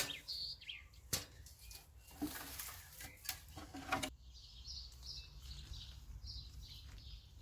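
Birds chirping in short repeated calls, with a few sharp clicks or flutters in the first four seconds.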